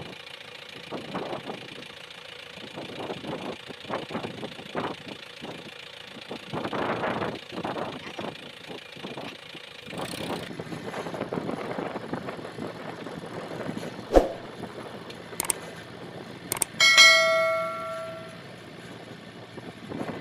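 Tractor diesel engine running, uneven and surging, with wind on the microphone. Near the end come a few sharp clicks and then a single bright bell chime that rings and dies away: the added sound effect of a subscribe-button animation.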